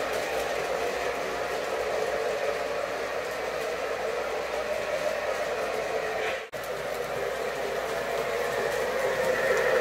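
O-gauge three-rail model trains running on the layout: the steady rolling noise of wheels on metal rails and the trains' motors. It drops out for an instant about six and a half seconds in, then carries on.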